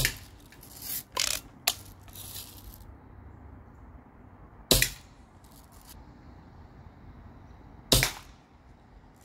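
Daisy Red Ryder model 1938 lever-action spring-air BB gun fired three times, each shot a sharp snap, the shots about three to four seconds apart. Between the first two shots the lever is worked to cock the spring, a short run of clicks and rasps.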